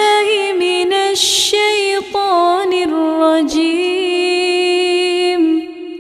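A single reciter's voice chanting Qur'anic recitation in long, held, ornamented notes, with a hissing consonant about a second in; the voice falls away near the end.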